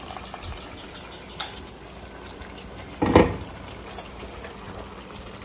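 Masala sauce simmering around a whole lamb leg in a wide uncovered pan: a steady faint bubbling hiss, with a single louder knock about three seconds in.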